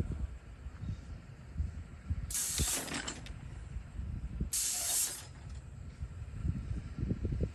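Range turning-target mechanism swinging the targets to face and then back edge-on two seconds later: two short hissing bursts about half a second each, over a low rumble.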